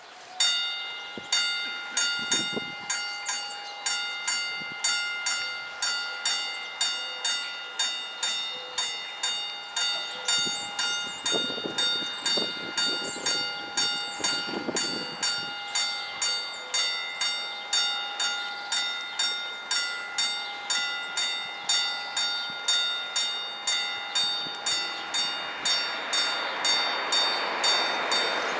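Level-crossing warning bells start ringing abruptly, struck about twice a second, each strike ringing on with a clear metallic tone. A rising rush of noise builds under the bells near the end.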